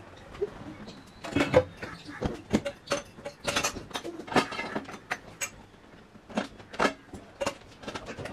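A cloth wiping and rubbing a glossy kitchen countertop, giving an irregular string of short scrubbing swishes and squeaks.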